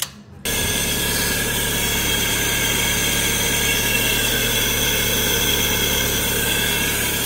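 Fiat Fire 1.0 four-cylinder engine idling steadily, coming in suddenly about half a second in. It runs without bearing noise from the front of the engine, with the worn water pump replaced and a new timing belt fitted.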